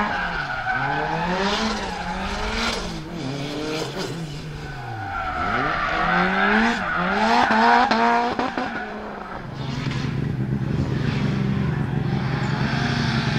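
Tuned turbocharged 2.0-litre four-cylinder of a Lancia Delta Integrale Evo 2 revving hard and lifting off again and again through the corners, its pitch rising and falling, with bursts of hiss and tyre squeal as the car slides. After about nine seconds the engine settles to a steadier, lower note.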